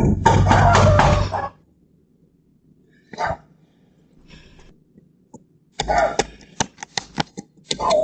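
Close handling noise on a doorbell camera's microphone: a loud rubbing thump as a hand grabs at the unit, then, about six seconds in, a quick run of sharp clicks and taps as her hand with a lighter comes right up against the camera.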